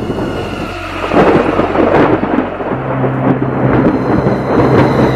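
Thunderstorm sound effect: thunder rumbling in repeated swells over a steady hiss of rain. A low steady hum joins about three seconds in.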